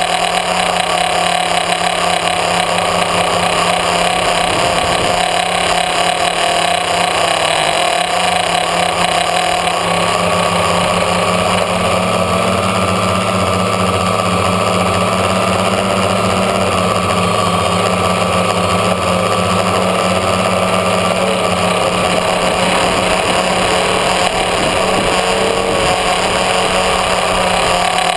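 Electric motors and propellers of a multirotor tricopter whining steadily in flight, heard from its onboard camera. The pitch rises a little about ten seconds in and eases back down later as the throttle changes.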